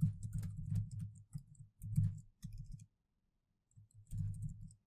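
Laptop keyboard keystrokes: quick runs of typing clicks with dull thumps, broken by a silent pause of about a second in the middle.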